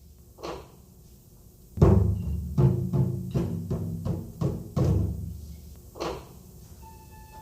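Taiko drums played in a performance: one soft deep hit, a pause, then a loud strike about two seconds in followed by a run of deep strikes that thin out. A faint held high tone comes in near the end.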